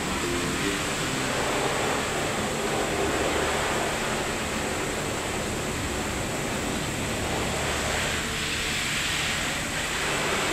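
Steady background noise with a low hum underneath and no distinct events, slightly brighter and hissier for a couple of seconds near the end.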